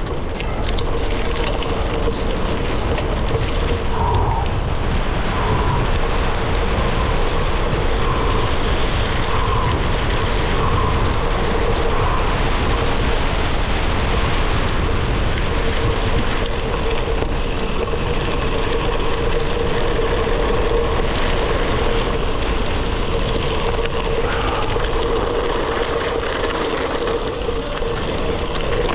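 Gravel bike rolling along a dirt and gravel forest trail on 38 mm Panaracer GravelKing SS tyres: a steady tyre rumble mixed with wind buffeting the action camera's microphone, and a steady hum.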